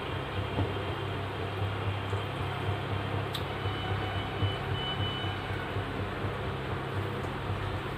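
Steady low rumbling roar of a gas stove burner turned up to high flame under a large pot of water and mutton pieces, with one light click a little past three seconds in.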